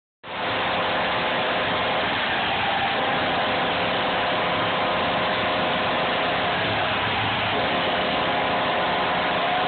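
Packed hockey arena crowd cheering in a loud, steady roar.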